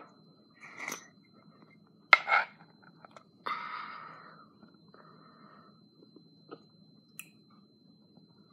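A glass spice jar with a plastic cap being handled: a sharp snap about two seconds in, the loudest sound, then a short rustling scrape about a second later, and a few faint ticks after that.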